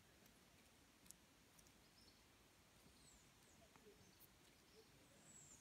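Near silence: quiet outdoor ambience with a few faint, high bird chirps, one short falling whistle near the end.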